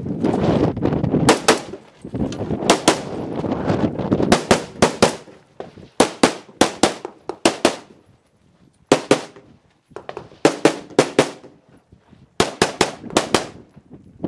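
Pistol shots fired in quick strings of two to five, with short gaps between strings as the shooter moves between positions, and a rough rustling noise between some of the strings.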